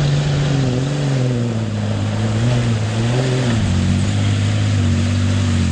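Engine of a lifted Toyota Land Cruiser Prado working hard in mud, its note sagging and wavering under load. The pitch lifts briefly about three seconds in, then drops lower.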